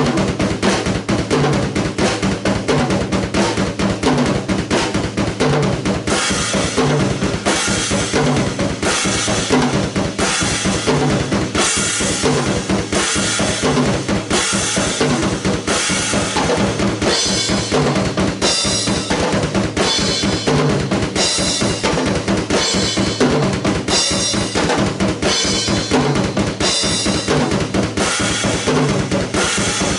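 Silver Sonor acoustic drum kit played fast and steadily, with dense bass drum and snare hits. From about six seconds in, bright cymbal strikes recur at a regular rhythm.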